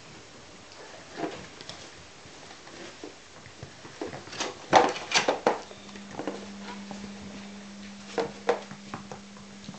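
Four-week-old Smooth Collie puppies playing, scuffling and knocking about with scattered taps and knocks, a cluster of sharper knocks about halfway through.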